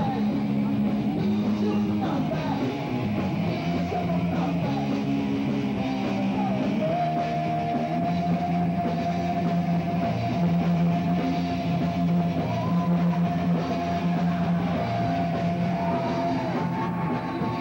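Live heavy rock band playing, with distorted electric guitars, bass and a drum kit. A long high note is held from about seven seconds in until near the end.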